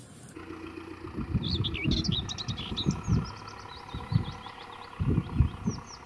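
Small birds chirping in quick, repeated short calls over irregular low thumps and rumble.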